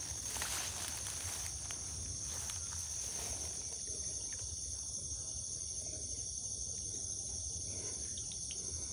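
Steady chorus of night insects, a high shrill hum that never lets up, with faint rustles and clicks in the first few seconds.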